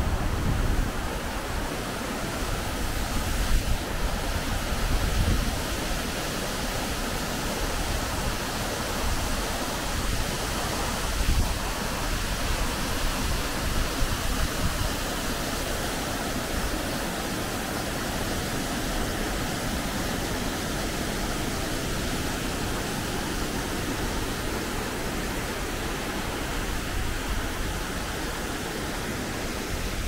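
Steady rushing of a waterfall, an even wash of noise, with low gusts of wind buffeting the microphone.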